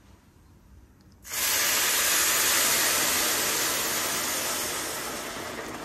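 Hot milk poured into a pan of vermicelli roasted in ghee, sizzling and hissing loudly as it hits the hot fat. The sizzle starts suddenly about a second in and slowly dies down.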